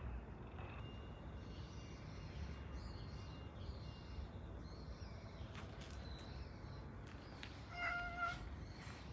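A cat meows once, a short call of about half a second, near the end, over a steady low outdoor background.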